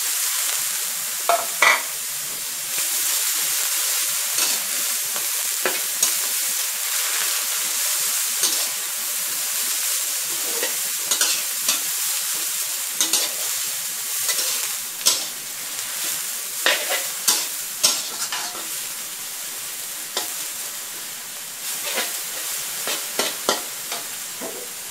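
Vegetable fern and minced pork stir-frying in a hot steel wok: a steady sizzle, with the metal spatula scraping and clanking against the wok at irregular intervals.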